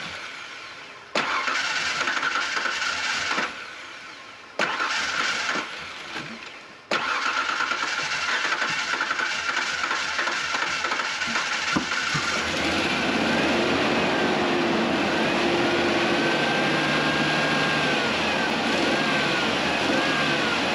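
The 1996 Ford Ranger's 3.0 L V6 is cranked by its new starter in two short bursts, then in a longer crank. About twelve seconds in it catches and keeps running, on an engine known to have a misfire.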